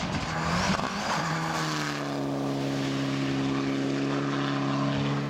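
Rally car engine on a gravel stage, its revs shifting with gravel and road noise for the first couple of seconds, then held at one steady high note. It cuts off suddenly at the end.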